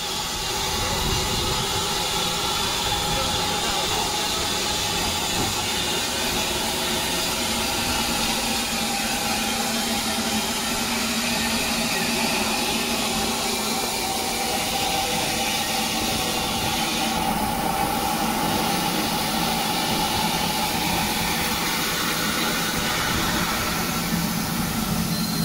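Saddle tank steam locomotive standing in steam, a steady hiss of escaping steam.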